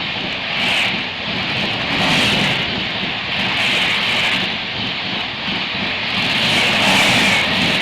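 Express passenger train passing at high speed: a loud, steady rush that swells and eases about every second and a half.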